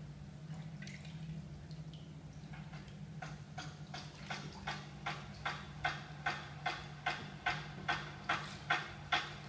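Water dripping steadily into a filled bathtub, about two and a half drops a second, starting faint about two and a half seconds in and growing louder, over a steady low hum.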